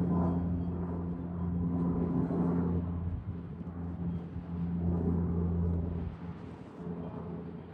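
Cessna 208B Grand Caravan's PT6A turboprop and propeller droning as the aircraft climbs out after takeoff, a steady low hum that swells and dips and grows fainter near the end.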